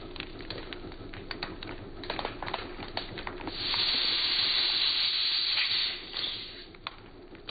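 Candy-coated chocolates (M&Ms) cracking and popping off a hollow ball under a car tyre, a run of sharp clicks, then a loud steady hiss for about two and a half seconds as the tyre crushes the ball and air escapes from it.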